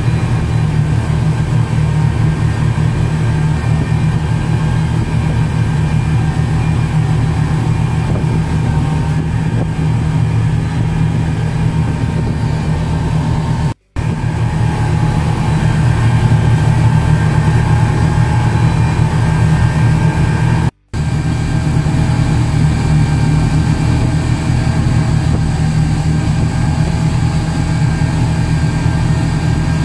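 Speedboat engine running steadily at speed: a loud, steady low drone with the rush of water and wind over the hull. The sound cuts out for a moment twice, about halfway and about two-thirds through.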